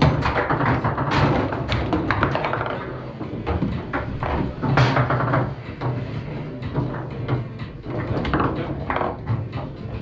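Foosball table in play: irregular sharp knocks and clacks of the ball and rods against the table.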